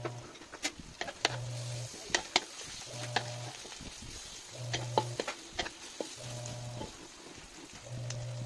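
Sliced onions and garlic sizzling in a wok while a spatula stirs them, knocking and scraping against the metal a dozen or so times. A low humming note recurs about every second and a half underneath.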